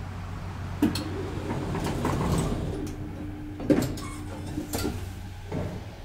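1991 Schindler elevator's sliding doors closing: a steady motor tone with sharp mechanical clicks, about a second in and again near four seconds.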